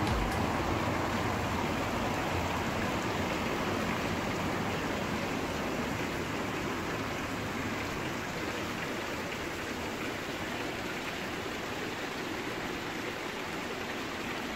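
Fountain water pouring from spouts into stone basins: a steady splashing rush.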